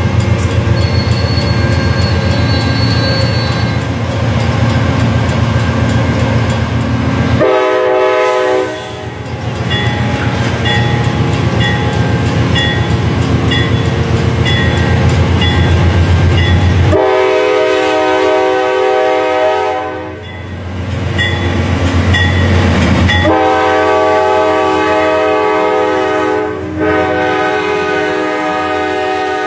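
Diesel locomotive of an Amtrak California passenger train running with a deep, steady rumble as it arrives, its horn sounding a chord of several notes. There is a short blast about a quarter of the way in, a blast of about three seconds past the middle, and a longer one starting near the end.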